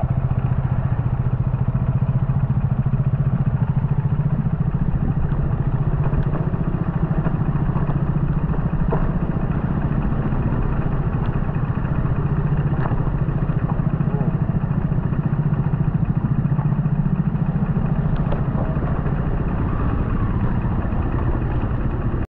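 Motorcycle engine running steadily at one even speed, with no revving, and a few faint clicks over it.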